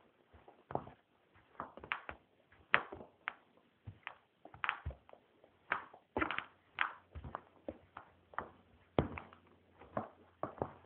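Sneakers stepping and treading on a rug: a string of irregular short knocks and scuffs, one or two a second.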